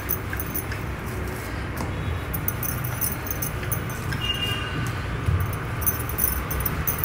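Rolling pin rolling paratha dough back and forth on a stone rolling board: a low, steady rolling rumble with faint metallic clinks.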